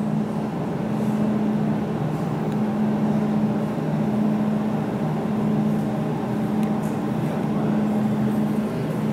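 Jewelry laser welding machine running with a steady, even hum.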